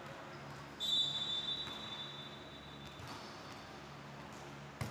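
Referee's whistle blown once in a long, high blast of about two seconds, loudest at the start and fading out. Near the end there is a single sharp knock.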